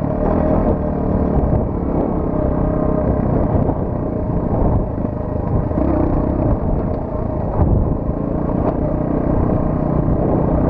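Qlink XF200 motorcycle's 200cc single-cylinder engine running under way, its pitch rising and falling a little, with heavy wind noise buffeting the microphone.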